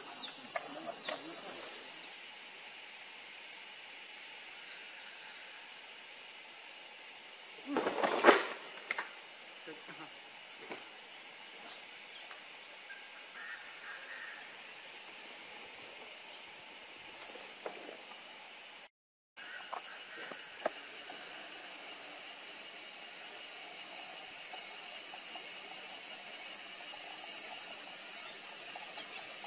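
Insect chorus, a steady high-pitched buzz. There is a single sharp knock about eight seconds in, and the sound drops out for a moment around nineteen seconds in.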